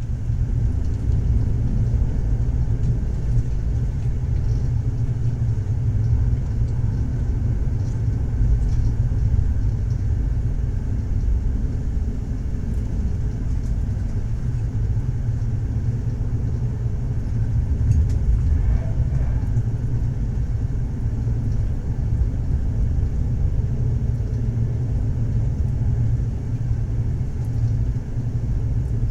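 Moving train running along the rails: a steady low rumble that stays even throughout.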